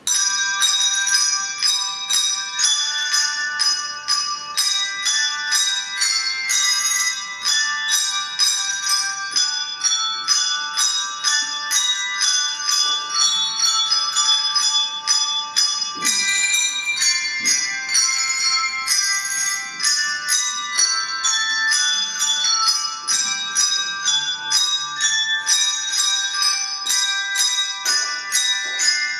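Handbell ensemble playing a tune: many bells struck in quick succession, their tones ringing on over one another. The music starts abruptly.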